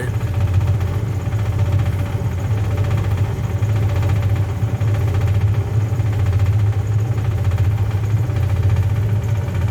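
Rooftop HVAC unit running with a steady, unchanging low hum.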